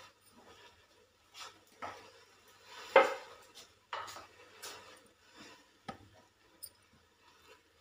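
Scattered knocks and clinks of metal kitchen pots and utensils being handled, about half a dozen separate strikes, the loudest about three seconds in with a short ring after it.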